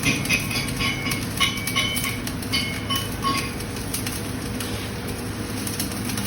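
Flux-cored arc welding: the arc crackling and sizzling steadily over a low hum, with sharper pops in the first few seconds.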